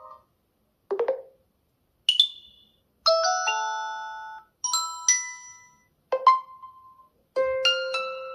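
OnePlus 10 Pro smartphone playing its built-in ringtones as previews, one after another: six short chiming tones of a few notes each, separated by brief silences.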